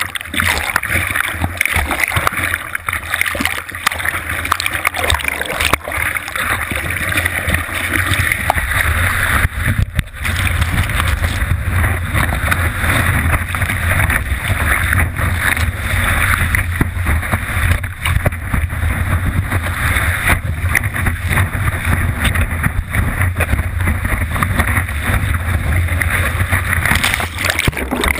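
Rushing, splashing surf water streaming over a surfboard-mounted action camera, with a deep rumble underneath, as the board is paddled and then ridden on a wave. Near the end the sound turns dull and muffled as the camera goes underwater.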